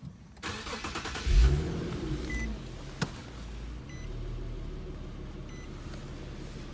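Infiniti coupe's engine cranking briefly and catching about a second and a half in, with a short rev flare that settles into a steady idle. There is a sharp click about three seconds in and a few faint chime beeps.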